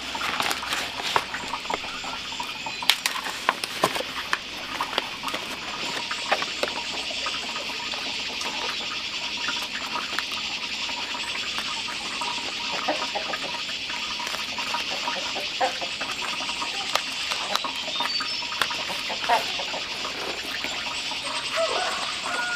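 Crisp clicks and crackles of fresh green leaves being folded around a cake and pierced with a thin bamboo pin. The handling sounds come over a steady high-pitched hiss.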